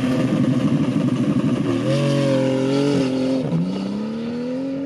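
Porsche 911 GT2's twin-turbo flat-six launching and accelerating hard, its pitch dropping at a gearshift about three and a half seconds in and then climbing steadily again.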